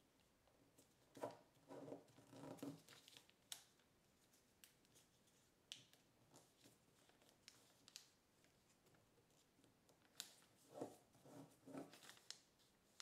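Faint crackling and rustling of kraft paper being folded and creased by hand, in two short bouts, one about a second in and one near the end, with a few light clicks of the paper between them.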